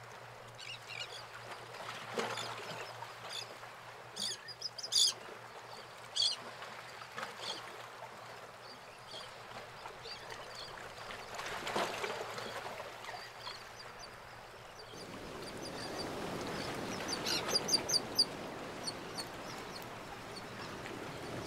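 Birds calling in clusters of short, high chirps, loudest about four to six seconds in and again near the end, over a soft steady rushing noise that grows louder about fifteen seconds in.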